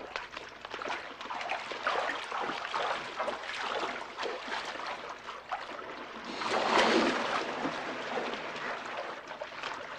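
Water splashing and sloshing in shallow water, with irregular small splashes and a bigger splash about seven seconds in, as the men grapple with a crocodile.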